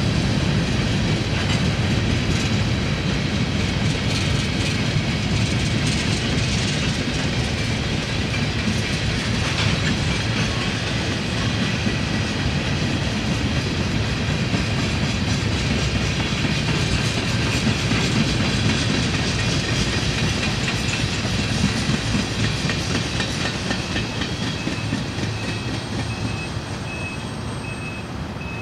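Freight train cars rolling past steadily, their wheels clacking over rail joints. The noise grows quieter near the end, when a repeating beep like a vehicle's backup alarm starts up.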